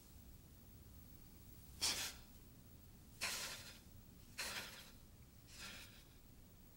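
Four sharp, forceful breaths, about a second and a quarter apart, each weaker than the last: rhythmic exhalations timed to the movements of a Tensegrity breathing pass.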